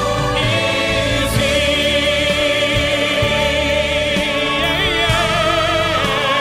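Gospel choir singing, the voices holding long notes with vibrato.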